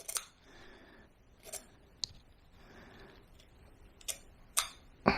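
Hand scissors snipping dog hair around the ears: about six short, sharp snips at uneven intervals.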